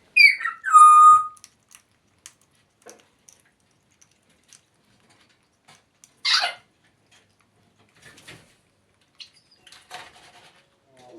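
African grey parrot whistling and squeaking: a falling whistle and then a loud held whistle in the first second, scattered soft clicks, and a short harsh call about six seconds in.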